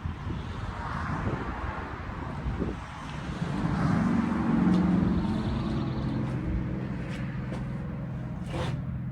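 A motor vehicle driving past, its engine and road noise swelling to a peak about four to five seconds in and then fading away.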